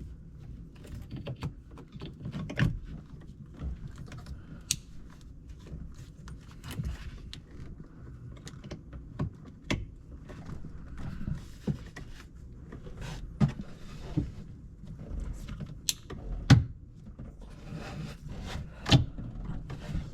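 Scattered knocks, clicks and rustling as an engine control module is wiggled and pushed into its sleeve up under a personal watercraft's front console, with a sharp knock about sixteen seconds in.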